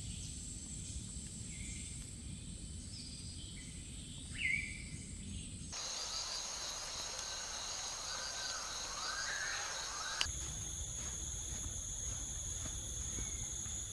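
Jungle ambience of insects buzzing steadily at a high pitch, with a few short bird calls. It is spliced from three recordings, with abrupt changes about six and ten seconds in. A low rumble sits under the first and last parts.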